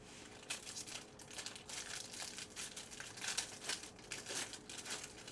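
A trading-card pack wrapper crinkling and tearing as a Bowman Draft Jumbo baseball pack is ripped open, with a dense run of short crackles.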